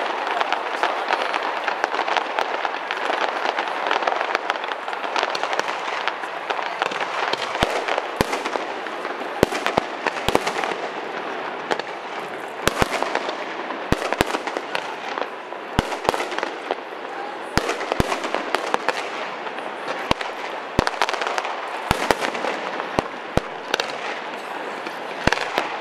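Fireworks display: sharp bangs go off irregularly, a couple of dozen in all, over a steady background din.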